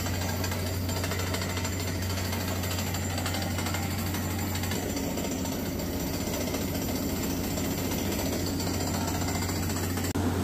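Water well drilling rig running its big down-the-hole air hammer: steady, rapid hammering with a constant low engine drone underneath.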